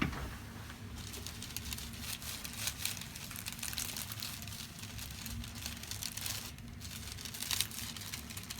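Continuous crinkling and rustling as the chiropractor works hands-on on the patient before an adjustment. It starts about a second in and breaks off briefly about two-thirds of the way through.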